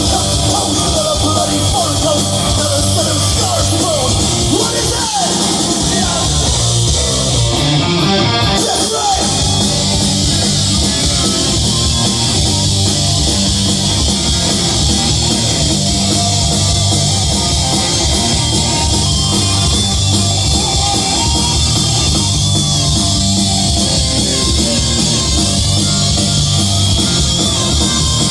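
Live hard rock band playing loud through a PA: distorted electric guitars, bass and drums in an instrumental stretch without singing, with bending lead-guitar notes in the first several seconds.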